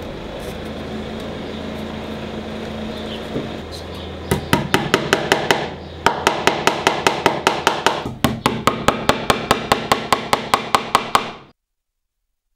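Small hammer tapping pins through model railway track into a wooden baseboard to fix the track down. Quick light taps, about five or six a second, come in three runs starting about four seconds in, and the sound cuts off suddenly near the end.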